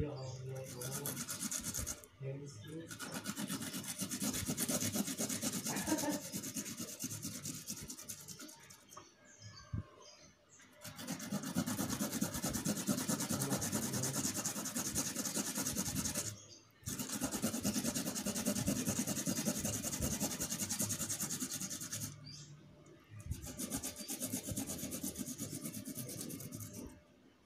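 Kencur (aromatic ginger) rhizome being grated on a hand grater: fast, steady rasping strokes in long stretches, stopping briefly every few seconds.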